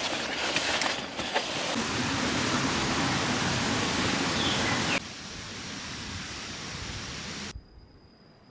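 Steady outdoor rushing noise that drops abruptly about five seconds in and falls almost quiet at about seven and a half seconds, with a faint high steady tone left.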